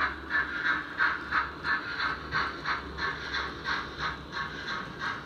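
Model steam locomotive chuffing steadily, about three even beats a second, over a low steady hum. This is the kind of steam exhaust effect a model's DCC sound decoder plays.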